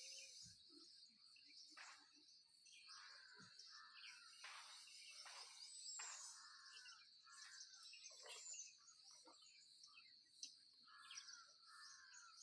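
Faint birdsong. Scattered chirps and short warbling calls, with a high descending whistle about six seconds in and again about eight seconds in, over a steady high-pitched hum.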